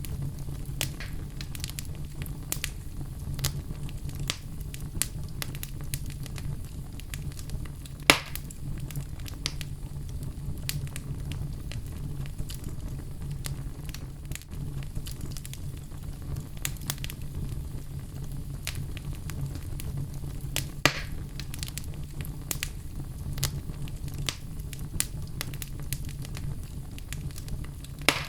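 Outdoor fire crackling, with a steady low rumble under many small snaps and two sharp, loud pops, about eight seconds in and again near twenty-one seconds.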